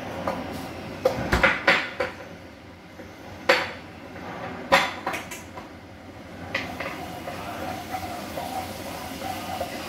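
Chopped vegetables sizzling in oil in a frying pan, with a few sharp clatters of kitchenware in the first half: a quick cluster about a second in, then single knocks at about three and a half and five seconds. Near the end a wooden spatula stirs and scrapes the pan.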